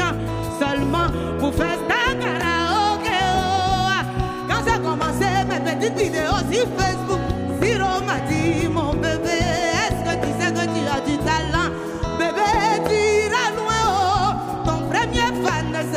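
Live band music with a woman singing lead through a microphone, her voice wavering in a wide vibrato and ornaments over bass guitar and drums.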